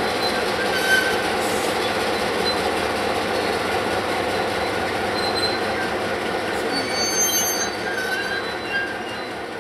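Atlantic Coast Line 501, a streamlined EMC diesel locomotive, creeping into a roundhouse stall with its engine running, over a steady rumble and grind. Thin, high brake squeals come and go on top. The sound eases off near the end.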